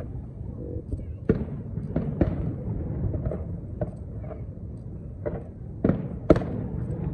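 Aerial firework shells bursting: about seven sharp bangs at uneven intervals, the loudest near the end, over a steady low rumble.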